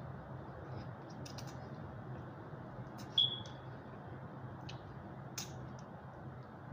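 A person chewing a mouthful of food, with small wet mouth clicks now and then, over a steady low hum. A short high ping about three seconds in.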